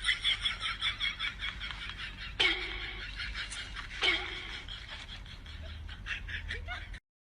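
A person laughing in quick, repeated pulses, trailing off into softer giggles; it cuts off suddenly near the end.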